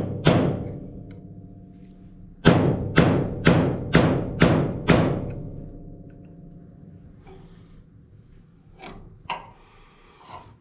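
Hammer blows on a steel punch, driving a stuck double roll pin out of a John Deere 444 corn head row unit. One blow comes just after the start, then a run of six about two a second, each ringing metallically. A few lighter taps follow near the end.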